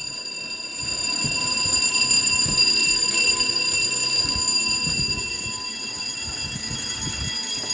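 Fire alarm sounding a steady, continuous high-pitched tone, set off from a manual call point during a weekly alarm test.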